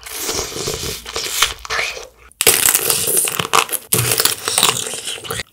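Close-up crunching and crackling of bites into candy-coated strawberries (strawberry tanghulu), the hard sugar shell cracking and the fruit being chewed. The eating sounds come in three stretches with sudden breaks between them.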